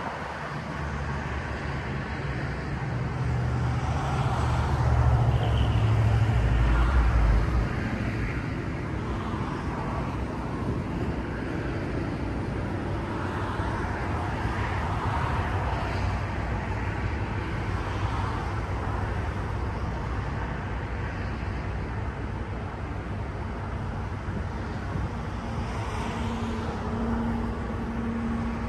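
Steady rushing wind and low machinery rumble on the deck of a container ship, heavier and louder for a few seconds about four seconds in. A faint steady hum joins near the end.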